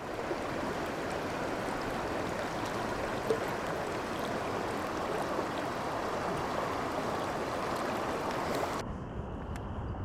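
Steady rush of flowing water that cuts off abruptly near the end. It leaves a steady high chirring of crickets over a low rumble.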